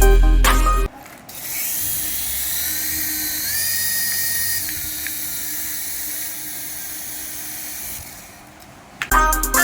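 Small electric motor of a radio-control toy whining at a high pitch. Its pitch steps up briefly about three and a half seconds in, then falls back. Background music plays for about a second at the start and comes back near the end.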